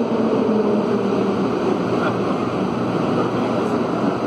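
CAF NS-07 rubber-tyred metro train running into a station, with a steady rolling and running noise. A faint motor whine under it drops slightly in pitch as the train slows.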